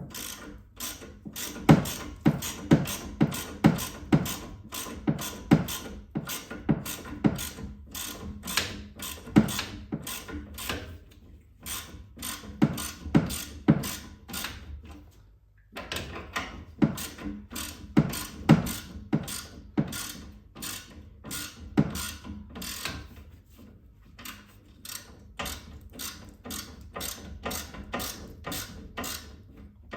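Hand ratchet wrench clicking in quick, steady strokes as a nut or bolt is turned, with a couple of short pauses near the middle.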